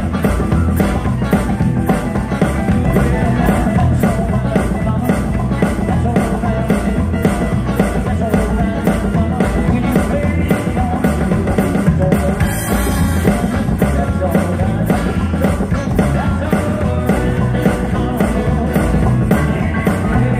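Live rock and roll band playing an up-tempo number on electric guitar, upright bass, drum kit and keyboard, with a steady driving beat.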